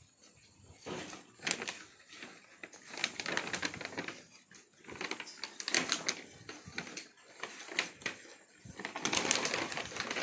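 Siamangs eating fruit and moving about close by: irregular clicks, rustles and scuffs in short clusters, with no calling.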